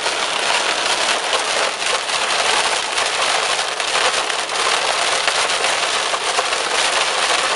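Heavy rain mixed with small hail pelting a moving car's roof and windshield, heard from inside the cabin: a dense, constant patter of countless small hits.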